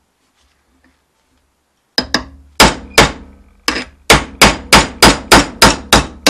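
Hammer blows driving a snapped wheel stud out of a Classic Mini's front drive flange: about a dozen sharp metal strikes, roughly three a second, starting about two seconds in, each ringing briefly.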